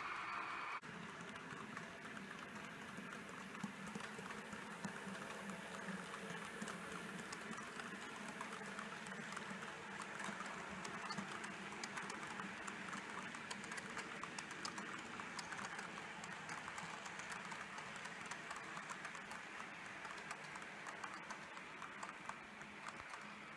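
H0-scale model freight train of hopper wagons rolling along the track: a steady, fast clicking clatter of small metal wheels on the rails and rail joints, with a faint low hum under it. It starts about a second in.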